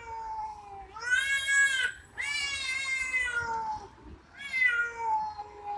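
Two cats yowling in a territorial standoff: a run of long, drawn-out wailing calls, one after another, the loudest about a second and two seconds in.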